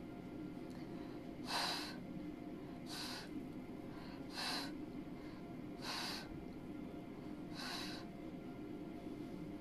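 Five short, sharp puffs of breath blown out, about one and a half seconds apart.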